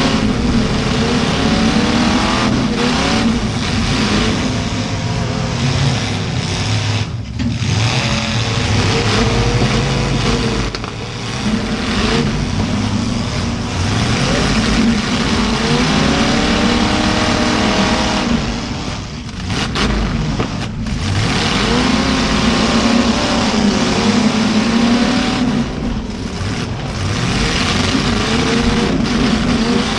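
Demolition derby cars' V8 engines revving hard, pitch rising and falling over and over as the cars accelerate and back off, with a few brief dips in the noise.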